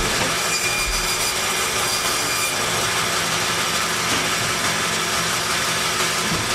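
A meat saw running steadily, cutting through lamb carcass.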